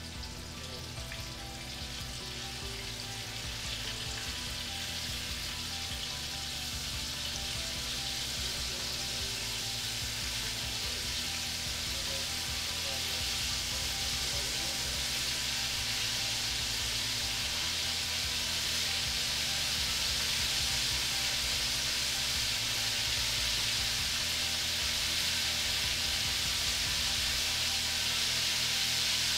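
Floured duck strips deep-frying in very hot peanut oil in a cast-iron Dutch oven: a steady sizzle and bubbling that grows gradually louder.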